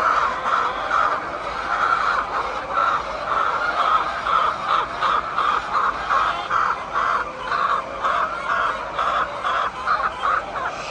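A flock of chickens calling and clucking, many short calls overlapping without a break.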